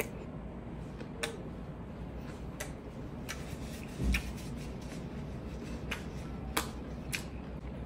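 Close-up eating sounds of a person eating kinilaw and rice by hand: scattered sharp clicks of mouth and fingers, roughly one every second, over a steady low hum, with a short low thump about four seconds in.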